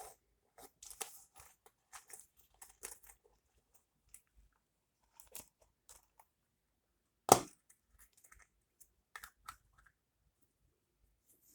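Beads clicking and knocking together as they are handled and strung into a bracelet: scattered short clicks, with one louder knock about seven seconds in.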